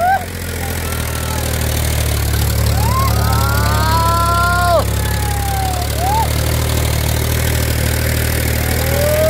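Powertrac Euro 50 tractor's diesel engine running steadily under load as it tries to pull its mud-stuck trailer free. A long drawn-out call rises, holds and falls about three seconds in, with a shorter one about six seconds in.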